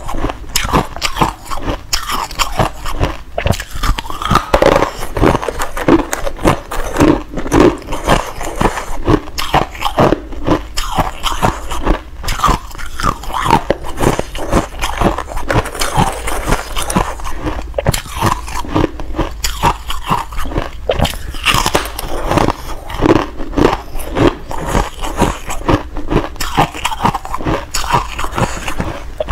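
Freezer frost flakes being bitten and chewed close to a clip-on microphone: a dense run of crisp crunches with no pause.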